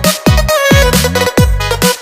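Electronic dance music with a steady beat: deep kick drums that drop in pitch, a bass line and sustained synth notes.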